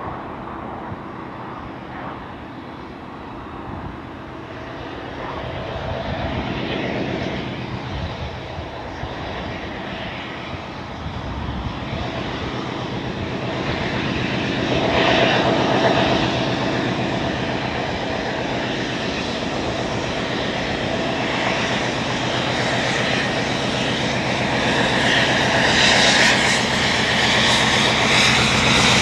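Class 56 diesel locomotive with its Ruston-Paxman V16 engine, running under power as it hauls a train of box wagons. The steady engine sound grows louder as the train draws nearer.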